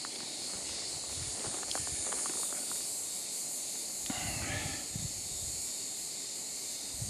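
Steady high-pitched shrill of an insect chorus in sunny pine scrub, with a few faint ticks and rustles close by.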